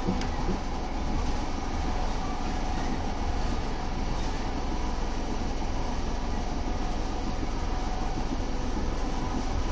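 Electric passenger train running at speed, heard from inside the carriage by the window: a steady rumble and hiss of wheels on the rails with a faint steady whine. A single sharp click comes just after the start.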